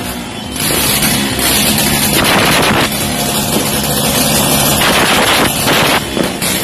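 Dense, continuous noise of many New Year firecrackers going off together, a loud unbroken din in which no single bang stands out.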